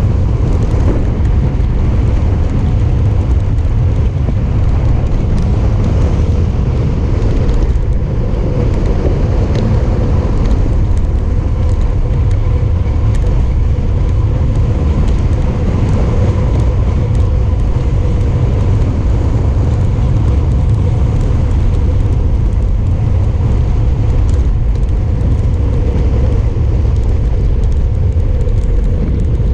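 Wind buffeting a bicycle-mounted GoPro's microphone on a fast downhill run: a loud, steady low rumble and rush of air.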